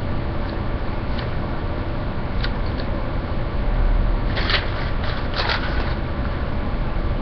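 A paper receipt crinkling as it is handled and unfolded, with two louder rustles about halfway through, over a steady hiss and low rumble.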